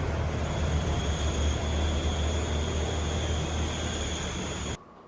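Steady low mechanical rumble with a faint high whine, cutting off abruptly near the end.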